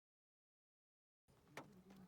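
Complete silence for over a second, then faint background sound with a single light click about a second and a half in.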